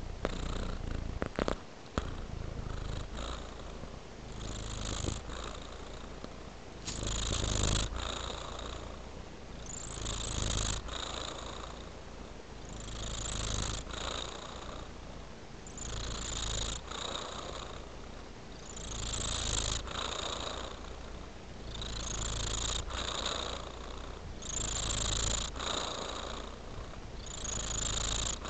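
Domestic tabby cat purring steadily while dozing, the purr swelling and fading with each slow breath, roughly every three seconds.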